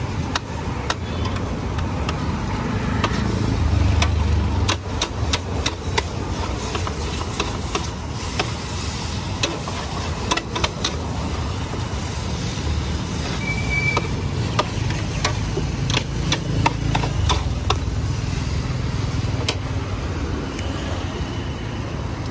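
Metal spatula repeatedly scraping and clanking against a large steel wok as rice noodles are stir-fried, with sharp irregular knocks throughout. Behind it runs a steady low rumble.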